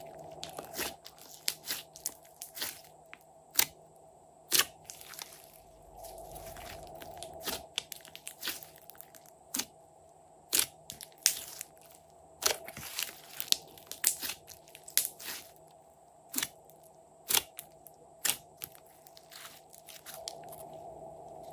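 Glossy glitter slime being kneaded, pressed and stretched by hand, giving irregular sharp pops and clicks as trapped air pockets burst.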